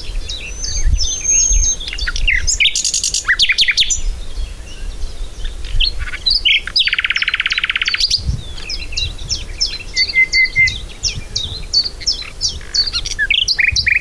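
Recorded song of a common nightingale played back over loudspeakers: a long, varied run of whistles, chirps and quick trills, with a fast, dense rattle about seven seconds in.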